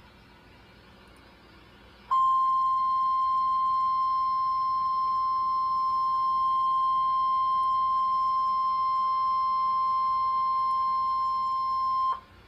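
NOAA Weather Radio 1050 Hz warning alarm tone, the signal that switches on tone-alert weather radios for a watch or warning. One steady high tone starts about two seconds in, holds for about ten seconds and cuts off sharply. Before it there is only faint radio hiss.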